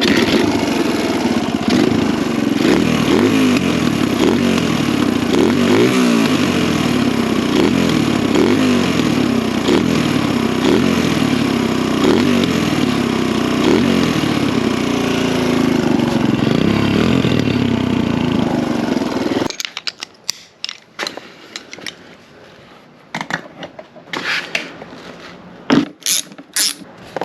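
Kawasaki KLX dirt bike's single-cylinder four-stroke engine running, its pitch rising and falling with the throttle, then cutting off suddenly about twenty seconds in. After that come scattered light clicks and knocks.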